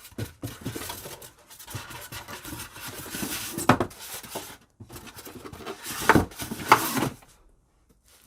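Styrofoam packing being pulled out of a cardboard box: irregular rubbing and scraping, with three sharp foam squeaks, one a little before the middle and two close together later on. It goes quiet for the last second.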